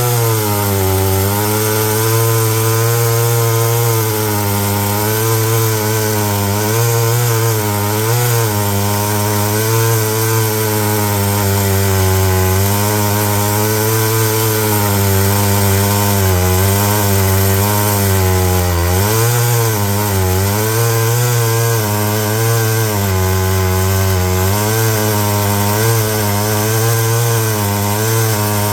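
Homelite EZ two-stroke chainsaw running at high throttle while cutting wood, its engine note wavering and dipping as the aggressive full-chisel chain bites and grabs hard. The pitch sags most deeply about two thirds through and again at the end.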